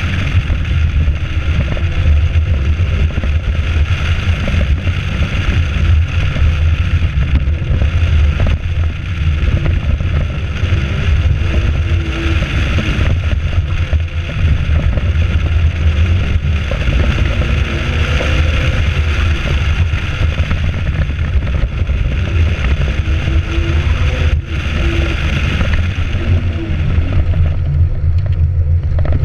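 Wind buffeting a camera microphone mounted on the outside of a sports car during an autocross run, with the car's engine underneath, its pitch rising and falling as the driver accelerates and brakes between cones.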